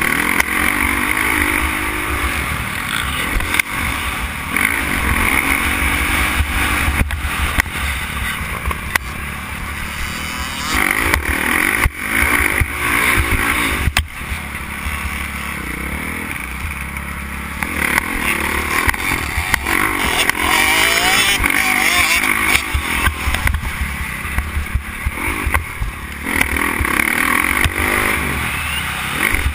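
Motocross dirt bike engine heard from the rider's helmet camera, revving up and falling off over and over as the bike is ridden hard around the track.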